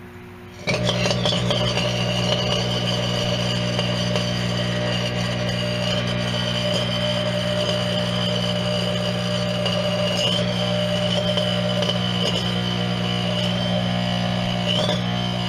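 A broken microwave oven switches on about a second in and runs with a loud, steady electrical hum and buzz and a thin high whine over it. The owner says the fault is arcing behind the waveguide's cardboard cover, which is burnt.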